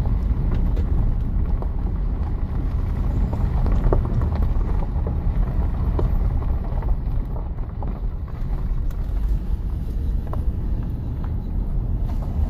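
Car driving along: steady low road and engine rumble, with wind noise on the microphone.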